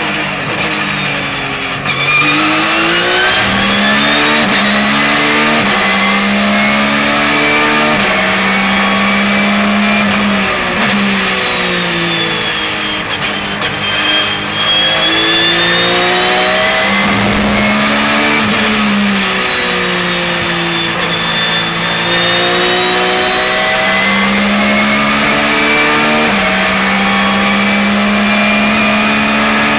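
Porsche 911 GT3 R's flat-six racing engine at race pace, heard from inside the car. The revs climb hard and drop sharply at each quick upshift, and twice, about ten and twenty seconds in, they fall away in a long sweep of downshifts and then pick up again.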